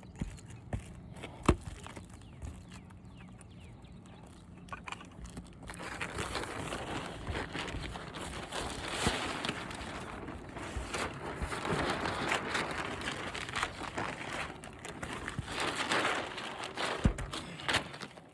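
A plastic roofing tarp being handled: crinkling and rustling that gets louder about six seconds in, with scuffing steps and a few sharp knocks.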